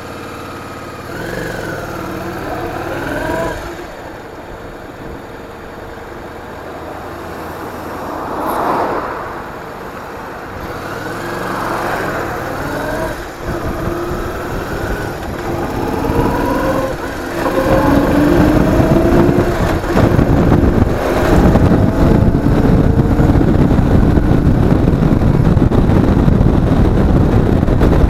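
Motorcycle engine revving up and easing off several times as it pulls away and changes speed, with the pitch rising and falling. From a little past halfway, loud wind rush on the mounted camera's microphone drowns it out as the speed rises.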